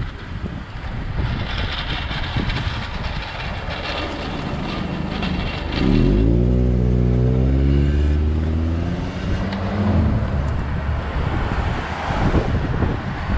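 A car engine drones loudly for about four seconds as it passes close by, its pitch dipping at first and then holding, over a steady rush of wind on the microphone of a moving skater.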